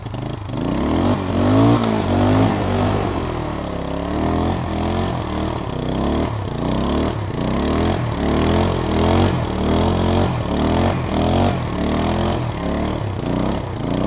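A four-wheeler (ATV) engine revs up and down over and over, about once a second, as it tows a snowboarder by rope through deep snow. Its wheels are spinning and throwing snow, and it is starting to get stuck.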